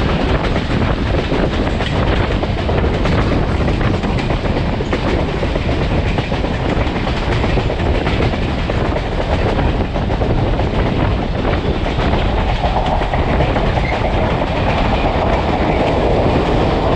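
A passenger railcar running at speed over the track: a steady, loud rush of wheel-on-rail noise with clattering over the rail joints. Near the end the car runs into a tunnel.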